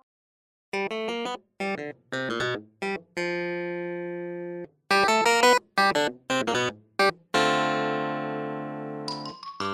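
Instrumental background music: short pitched chords in stop-start phrases broken by brief gaps, with two longer held chords, coming in just under a second in.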